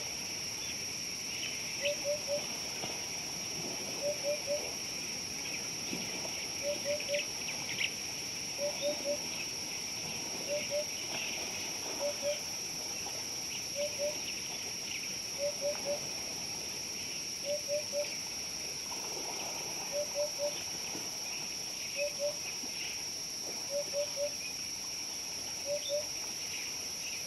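Steady high-pitched insect drone, with a bird repeating a short phrase of two or three quick low notes about every two seconds. The repeated calls are the loudest sounds.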